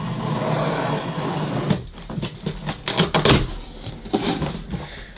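Cardboard box being opened at the top: flaps and cardboard rustling and scraping, with a quick cluster of sharp scrapes and knocks about three seconds in.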